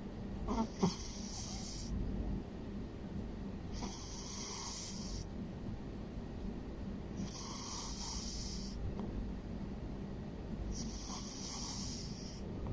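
A sleeping cat snoring: four hissing breaths, each lasting over a second, about three and a half seconds apart.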